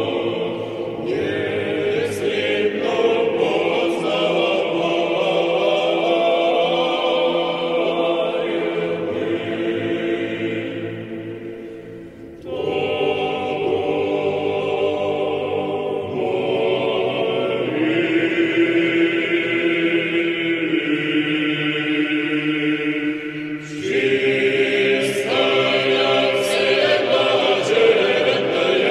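Choir singing an Orthodox Church Slavonic hymn to the Theotokos in slow, held chords. One phrase fades out just before the middle and a new one begins straight after; another starts near the end.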